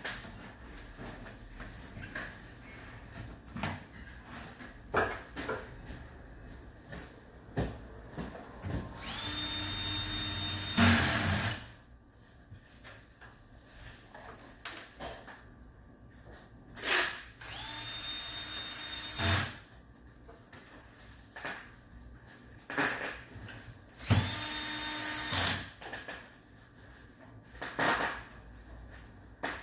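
Power drill-driver running in three bursts of about two seconds each, driving screws, with short clicks and knocks of parts being handled in between.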